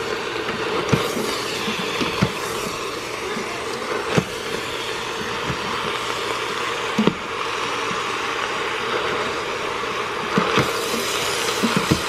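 A silicone spatula stirring sliced raw potatoes and ground beef in a stainless steel pressure-cooker pot: slices shifting and scraping, with occasional sharp knocks of the spatula against the pot, over a steady background noise.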